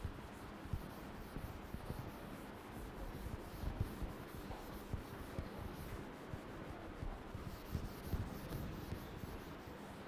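Chalk scratching and tapping on a chalkboard as an equation is written out, with a few sharper taps.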